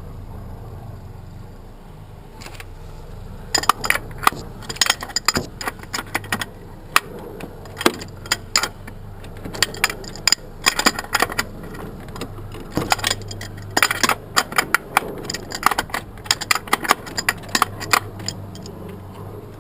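Metal tools and parts clinking and rattling in quick irregular runs while working on an engine, starting a few seconds in and stopping near the end, over a steady low hum.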